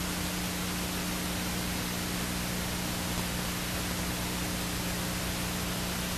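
Steady hiss with a low, even hum underneath: the recording's own background noise, with no program sound.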